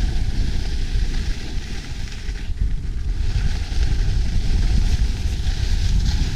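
Heavy wind buffeting the microphone: a loud, steady low rumble with rushing hiss over it.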